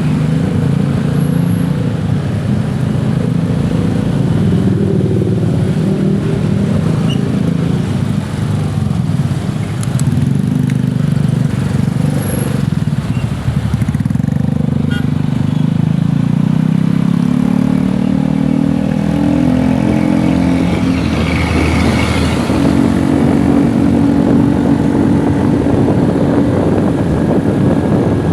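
A motor vehicle's engine running at road speed over steady road and wind noise, its pitch climbing about halfway through as it speeds up, then holding higher.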